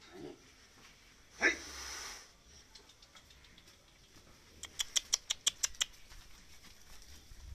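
Cattle being moved out of a barn pen. A short sudden blow with a hiss comes about a second and a half in, and a quick run of about eight sharp clicks follows in the middle.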